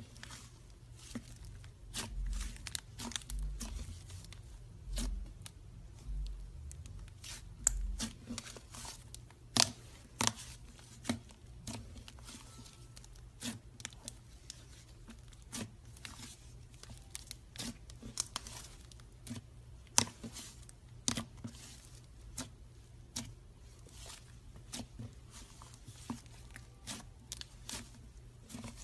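Butter slime being kneaded, folded and stretched by hand: a steady run of sharp little clicks and crackles, with soft low thumps in the first several seconds as it is pressed down on the table.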